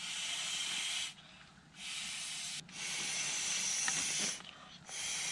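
A steady hiss of background noise in four stretches, each starting and cutting off suddenly, with brief quieter gaps between.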